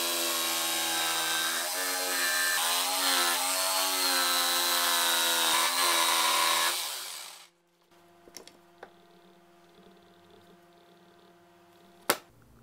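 Stanley jigsaw cutting a curve through plywood, its motor pitch wavering as the blade follows the line, stopping abruptly about three quarters of the way through. A few light clicks follow, then one sharp knock near the end.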